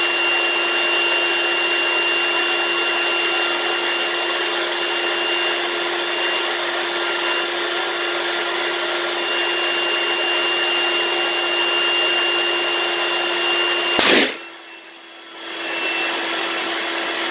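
Electric balloon pump running steadily with a constant hum as it inflates a large latex heart-shaped balloon, which bursts with one loud pop about fourteen seconds in. The pump's noise drops away for a second or two after the bang, then comes back.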